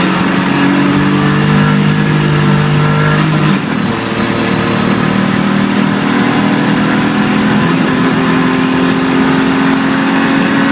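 BMW 325ti Compact's straight-six engine pulling steadily, heard from inside the cabin. Its note drops away briefly about three and a half seconds in, then comes back and climbs slowly near the end, over a hiss of tyres on the wet road.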